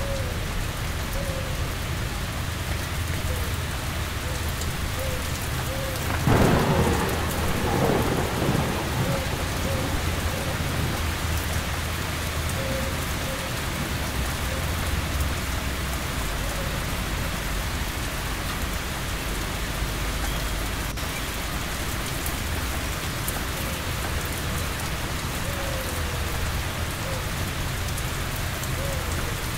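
Steady heavy rain falling, with a clap of thunder about six seconds in that rumbles away over the next few seconds.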